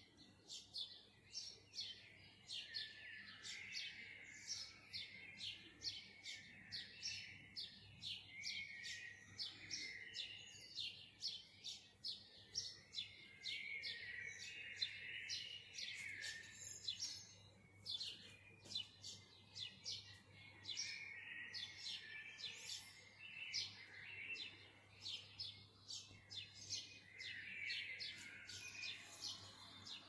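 Dawn chorus of many small birds: a dense, unbroken stream of short, high, overlapping chirps and twitters.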